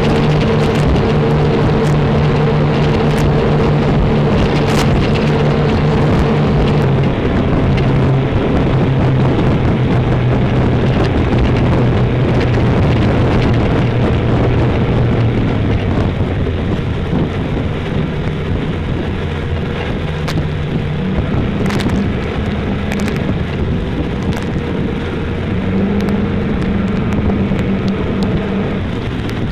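Outboard engines of an RNLI rigid inflatable lifeboat running at speed through choppy water, under a dense rush of wind, spray and hull slap, with a few sharp knocks. The engine note steps down about a quarter of the way in and again around halfway, and the overall sound eases a little as the boat slows approaching a yacht.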